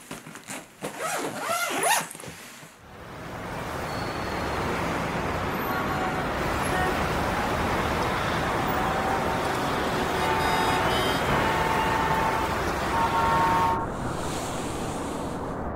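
Steady rush of car and road traffic noise that sets in about three seconds in, with short car horn toots sounding now and then through the middle. Before it, a few clicks and rustles of suitcases being handled.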